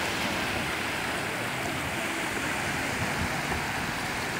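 Small sea waves washing and breaking in the shallows: a steady rush of water.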